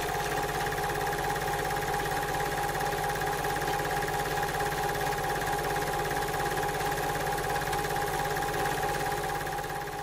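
A steady machine-like running sound effect: a fast, even clatter over a steady hum, fading out near the end.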